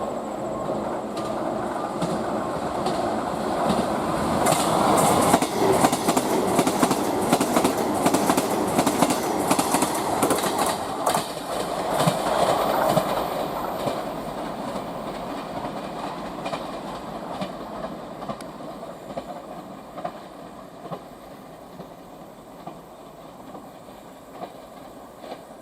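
Train running past on the track, its wheels clicking rapidly over rail joints; loud for roughly the first half, then fading steadily as it moves away.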